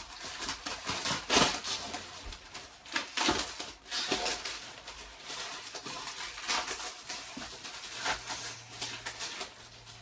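Irregular rustling, crinkling and scuffing as a rolled, plastic-wrapped mattress is handled and unwrapped, with the loudest rustles about one and a half and three seconds in.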